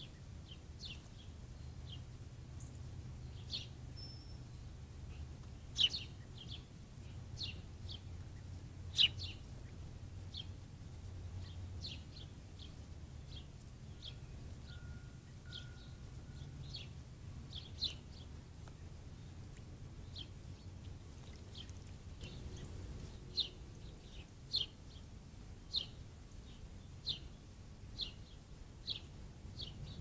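Small songbird chirping over and over in short, high chips at uneven intervals. Two louder, sharper chips come about six and nine seconds in, and near the end the chips settle into a steady one about every second. A faint low hum sits underneath.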